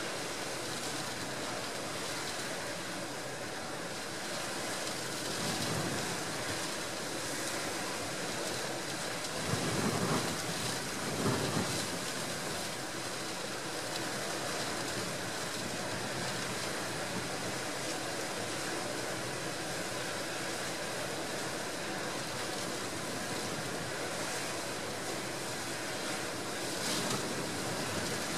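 Storm surf breaking and gale wind blowing, an even rush of noise with two louder surges about ten and eleven seconds in.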